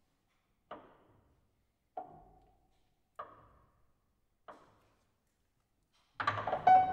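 Clarinet, cello and piano trio playing sparse, soft percussive clicks in a contemporary chamber piece, evenly spaced about one every second and a quarter. Near the end a denser, louder passage of pitched instrumental sound begins.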